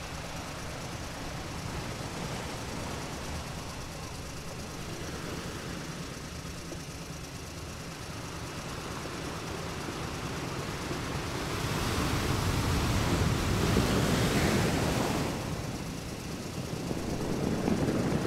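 Wind on the microphone and surf on a beach: a steady rushing noise that swells loud about twelve seconds in for a few seconds, then again near the end.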